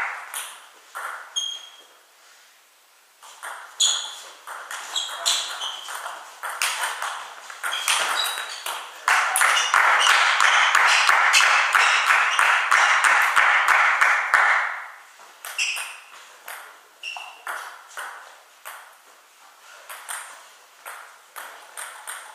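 Table tennis ball clicking off bats and the table in rallies, sharp pinging hits at irregular spacing. A few seconds of loud, steady crowd noise come in around the middle and stop suddenly.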